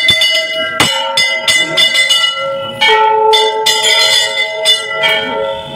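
Temple bells rung in worship, struck rapidly and unevenly about a dozen times, several bells of different pitch ringing on over one another.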